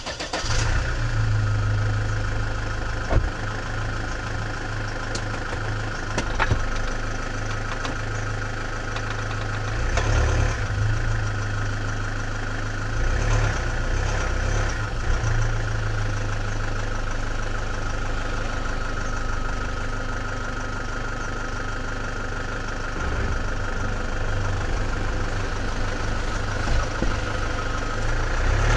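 Car engine catching right at the start, then idling steadily with a low rumble. A few sharp knocks stand out over the idle, one about three seconds in and another about six seconds in.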